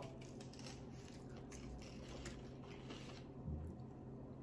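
Faint chewing of a bite of hot chicken sandwich, with small mouth clicks over the first three seconds and a brief low sound about three and a half seconds in.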